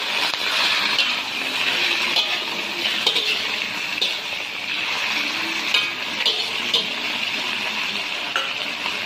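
Baby kailan sizzling in hot oil in a steel wok while being stirred with a metal spatula, a steady frying hiss with the spatula scraping and clicking against the pan now and then.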